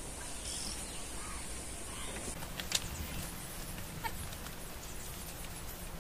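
Faint farmyard sounds: a hen clucking, with a couple of sharp knocks as calves are untied and led to a water trough. A steady high hiss in the background stops about two seconds in.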